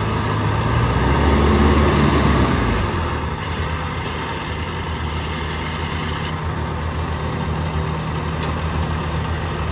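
Diesel engines of heavy farm machinery running during a mud recovery, a steady low drone that is louder for the first few seconds and then settles to an even run.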